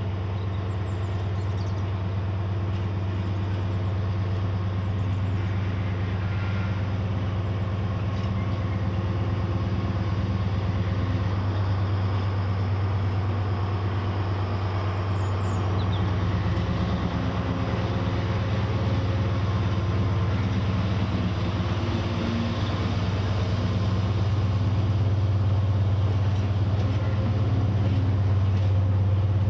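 Freightliner Class 70 diesel locomotive with its V16 engine running under power, a steady low drone that slowly grows louder as it approaches and passes, hauling a container freight train.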